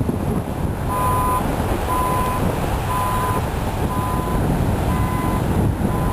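Wind buffeting the microphone, with an electronic vehicle reversing alarm beeping about once a second, starting about a second in.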